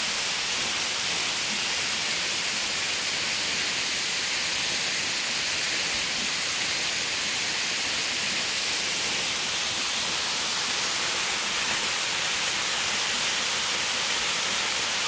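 Waterfall rushing steadily: an unbroken, even hiss of falling water.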